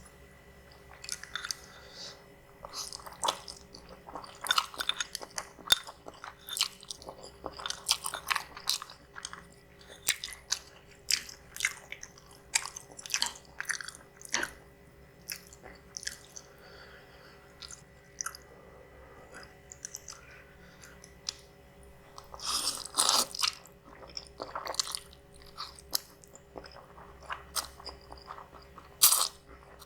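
Close-miked eating sounds of spicy instant noodles: wet chewing with many short mouth clicks and smacks in an uneven stream, and a denser, louder run of noise about 23 seconds in.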